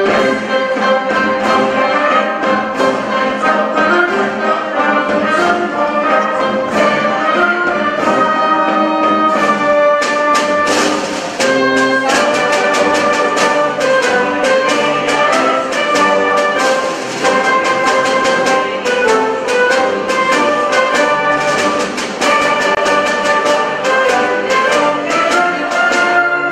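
A wind band playing a Bilbao-style piece: brass and clarinets carry the melody over regular drum strokes.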